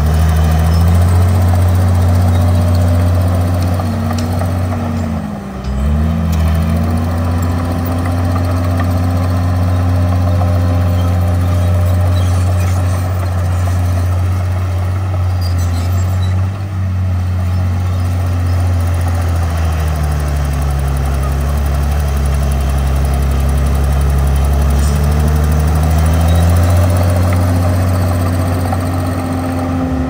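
Komatsu D51PX bulldozer's diesel engine running steadily under load, its low note dipping briefly a few times as the machine works.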